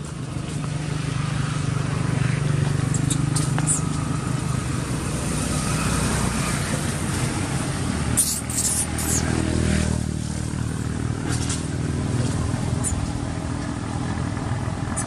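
Motor vehicle engine running nearby: a steady low drone that shifts in pitch about nine seconds in, with a few short sharp clicks.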